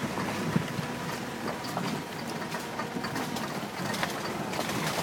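A vehicle travelling along a rough road: a steady running noise with scattered rattles and knocks.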